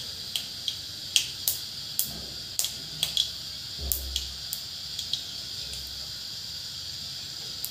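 Mustard seeds popping in hot mustard oil in a wok: sharp, irregular crackles, one or two a second, fewer over the last couple of seconds, over a faint steady hiss. It is the tempering stage, when the crackle shows the oil is hot enough for the onions to go in.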